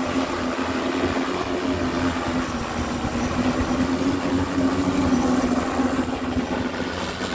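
Steady machine hum over a low rumble, rising slightly in pitch about four to five seconds in and settling again.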